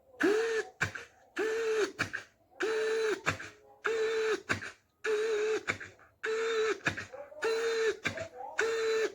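A person making a sound effect with the voice and mouth: a held, buzzing pitched sound repeated about once a second, each lasting under a second, with sharp mouth clicks in the gaps.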